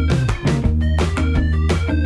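Instrumental background music with sustained bass notes, a layered melody and a steady beat.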